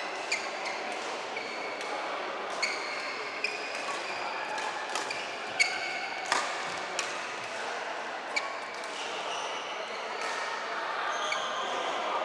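Badminton rally: rackets striking the shuttlecock with sharp pops roughly once a second, mixed with shoes squeaking on the court floor.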